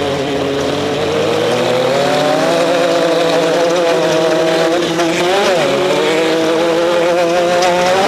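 Off-road race vehicle's engine under power: its pitch climbs over the first couple of seconds, then holds high and steady, with a brief rise and drop in pitch about five and a half seconds in.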